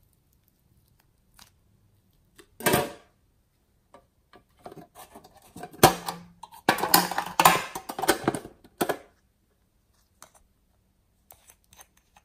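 Hands handling a small metal tin box and the little bottles inside it. There is one loud scrape about three seconds in, then a run of clicks and rattles in the middle, and a few faint clicks near the end.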